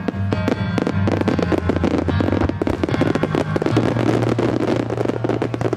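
Aerial fireworks crackling: a dense, continuous stream of small rapid pops from the falling orange sparks, over music with sustained low notes.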